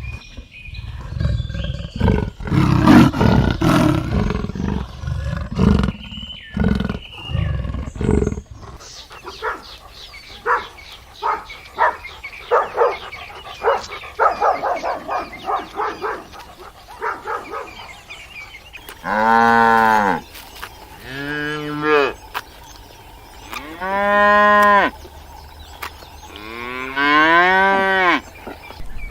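A cow mooing four times in the second half, each moo about a second long, rising and then falling in pitch. Before that come other harsh, noisy animal calls and then a run of rapid pulsed calls.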